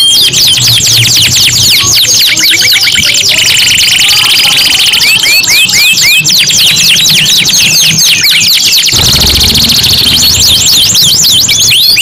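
Three domestic canaries singing at once, a continuous tangle of fast trills made of rapidly repeated falling whistles, with a steady buzzing roll in the middle.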